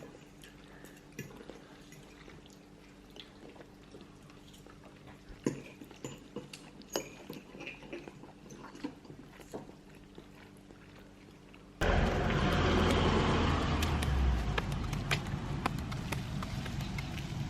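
Quiet room with a steady low hum and scattered light clicks and taps, as of cutlery and eating at a dinner table. About twelve seconds in, it cuts abruptly to a loud, steady rush of noise with a heavy low rumble.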